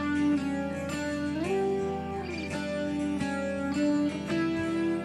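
Background guitar music: plucked notes that slide up and down between held pitches.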